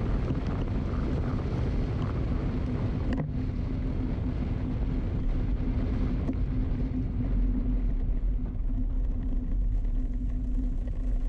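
Wind noise on the microphone over a steady low rumble of moving along wet streets, with a constant low hum and a single brief click about three seconds in.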